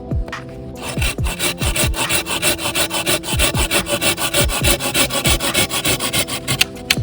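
Folding hand saw, a Samurai Kishi 210 mm, cutting through firewood in quick, even back-and-forth strokes. It starts about a second in and stops shortly before the end. Background music with a steady bass beat plays underneath.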